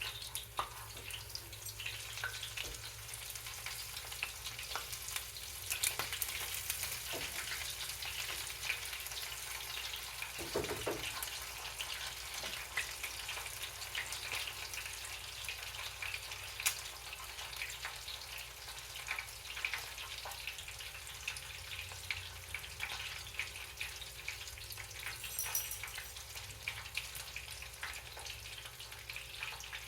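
Breaded chicken wing drumettes frying in hot oil: a steady sizzle with many small crackles and pops.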